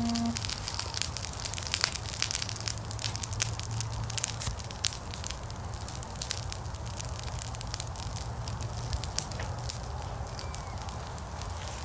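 Wood fire burning in a fire pit, the logs crackling with frequent sharp pops, thickest in the first half, over a low steady rumble.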